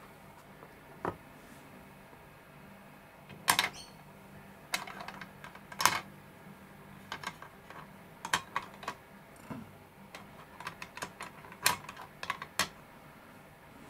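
Irregular light clicks and taps from small toy models and trailers being handled. The two loudest knocks come a little after three and six seconds in, with a quick run of smaller clicks later.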